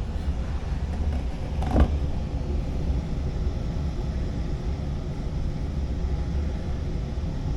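A machine running with a steady low rumble, and one short knock about two seconds in.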